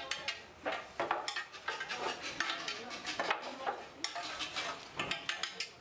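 Fired clay roof tiles clinking and clattering against each other as they are stacked by hand, a quick, irregular run of sharp ringing knocks.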